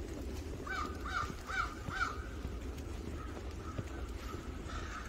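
A crow cawing four times in quick succession, followed by fainter, softer calls, over a steady low background rumble.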